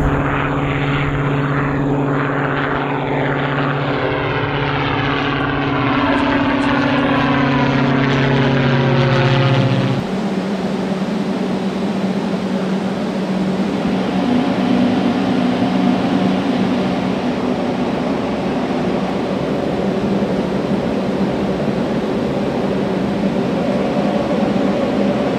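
MQ-1C Gray Eagle drone's piston engine and pusher propeller droning as it flies overhead, its pitch slowly falling as it passes. About ten seconds in the sound cuts abruptly to a different steady mechanical hum.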